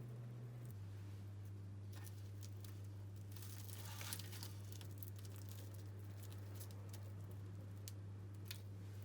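Faint crinkling and rustling of handled paper or plastic, with scattered small clicks and a brief louder rustle about four seconds in, over a steady low hum.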